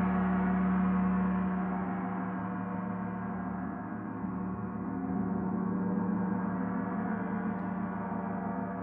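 Paiste Saturn planet gong, tuned to D (147.85 Hz), ringing on in a sustained wash of many steady overtones with no fresh strike. It fades a little, then swells again about halfway through.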